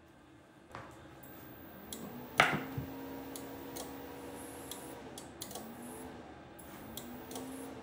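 A switch clicks, then a Vevor MIG-270 welder running off a modified-sine-wave power inverter hums for a couple of seconds and cuts out. It comes back in short rising hums about every second and a half, with small clicks, as it flickers on and off and won't stay on. The owner thinks the cheap non-pure-sine inverter is no good for running it.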